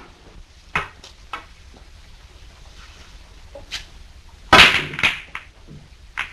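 Billiard balls clacking on a pool table: a few separate sharp clicks, then a louder clatter about four and a half seconds in, and one last click near the end.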